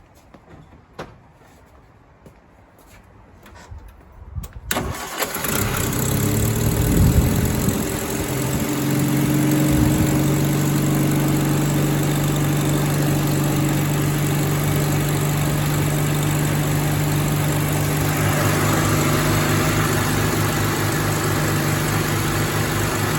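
Rover P4 80's four-cylinder engine is cranked by the starter and catches about five seconds in, revs briefly, then settles into a steady idle. It runs smoothly with one new ignition lead fitted. A few faint clicks come before the start.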